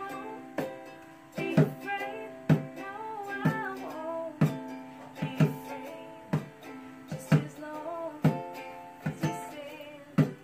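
Ukulele strummed in a steady rhythm, about one strum a second, with a voice singing a melody along with it.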